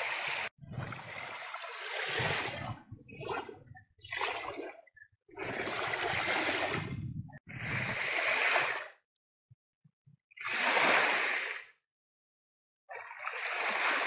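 Small sea waves washing up onto a sandy beach in a series of short surges, each lasting a second or two, with brief gaps between them.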